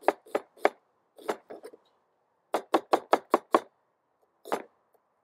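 Cleaver chopping an onion on a plastic cutting board: groups of sharp knocks, including a quick run of about six in a row, with short pauses between the groups and one last chop near the end.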